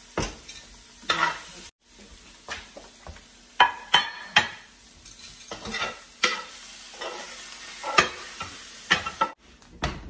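Sliced beef, mushrooms and onions sizzling in a hot ceramic-coated frying pan while a metal slotted spoon stirs and scrapes them, with repeated sharp clacks of the spoon against the pan. The sizzle cuts out briefly twice.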